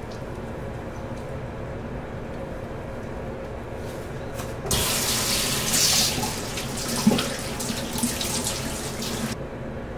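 Bathroom sink tap running, with water splashing as foaming cleanser is rinsed off a face. The running water starts about halfway through and cuts off sharply near the end.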